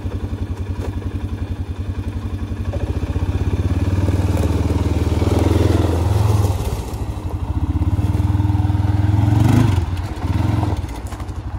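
2017 Arctic Cat VLX 700 ATV's single-cylinder four-stroke engine running with an even pulse. The revs rise from about three seconds in as the quad pulls away, dip briefly twice and then pick up again.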